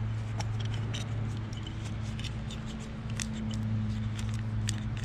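Small clicks and light scrapes of hands working a plastic wiring connector and hose loose from a car fuel pump assembly, over a steady low hum.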